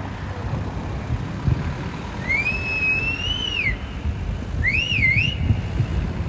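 A person whistling twice: a long whistle that rises, holds and falls, then a shorter one that goes up, down and up again. Underneath is a steady low rumble of wind on the microphone.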